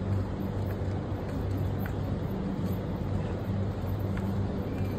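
Steady low hum of street traffic and running car engines, with no break.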